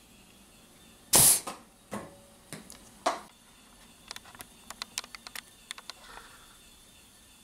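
Pneumatic foam-arrow launcher firing: a short, loud burst of released compressed air. A few knocks follow, then a quick run of light clicks.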